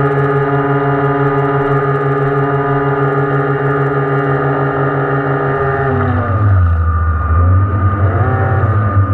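Electric motor of a radio-controlled model rescue boat running with a steady whine, heard up close from the boat's deck. About six seconds in the pitch falls as it throttles back, then wavers up and down.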